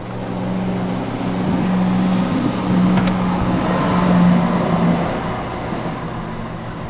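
A train passing over the level crossing: a rushing noise that swells to a peak about four seconds in and then fades, over a steady low hum.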